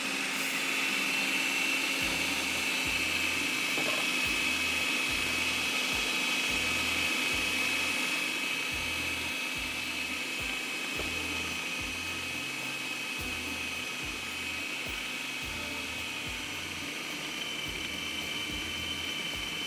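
Electric food processor motor running with a steady whine, kneading flour, salt and water into a stiff dough.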